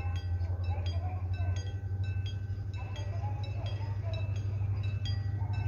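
Railway level-crossing warning bell ringing in quick metallic strokes, about three a second, over a steady low rumble. Near the end a steady mid-pitched tone joins in.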